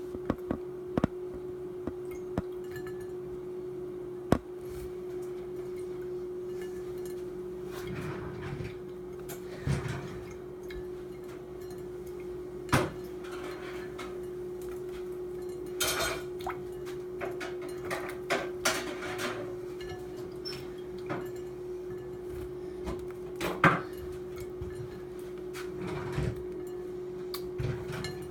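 Budgie bathing in a pie plate: scattered taps and clinks on the plate and short bursts of splashing water, with repeated small sneezes from dipping its nose in the water. A steady low hum runs underneath.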